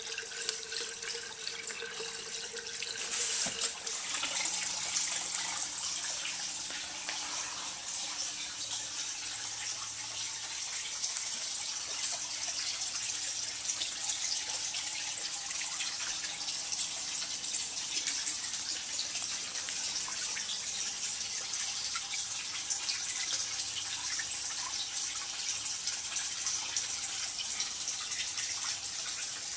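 Steady stream of water splashing into a tank as it is being filled, with one short knock about three seconds in.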